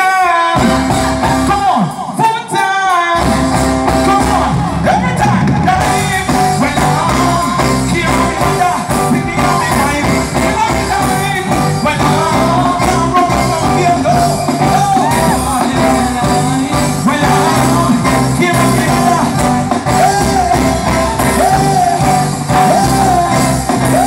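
Live reggae band with a singer's voice over the PA. The opening bars are sparse, mostly voice, and the full band with bass and drums comes in about three seconds in and keeps going.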